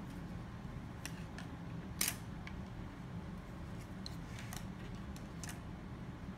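Wooden craft sticks clicking and tapping as they are handled and set down on a counter top to be arranged, a few light clicks spread out with a sharper short clatter about two seconds in. A low steady hum sits underneath.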